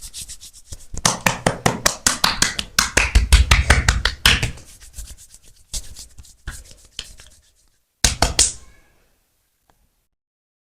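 Massage hand percussion on a person's body: a fast, even run of slaps and taps, about seven strokes a second, thinning to scattered taps, with a short flurry near the end before it stops.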